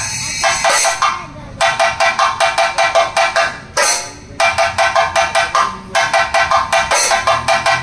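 Thayambaka ensemble of chenda drums and ilathalam cymbals playing fast, evenly spaced strokes, about seven a second, with two short lulls in the rhythm.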